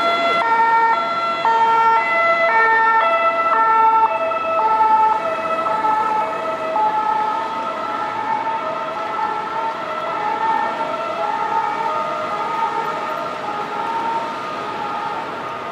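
French SAMU ambulance's two-tone siren, alternating between two notes about twice a second, loud at first and growing fainter from about halfway through as the ambulance moves away.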